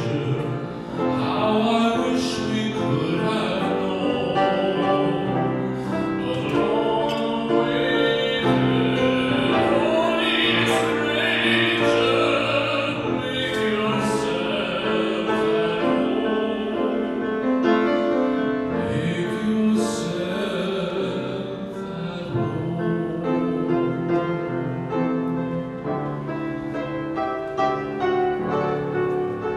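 Tenor voice singing a slow sacred song in a classical style with piano accompaniment.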